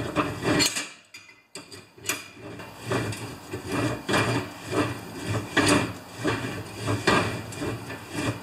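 Long 1-inch drill bit turned by hand with a crescent wrench inside a snowblower auger's tube, scraping steel on steel in repeated strokes about two a second as it shaves out a ridge left by a weld. There is a short pause about a second in.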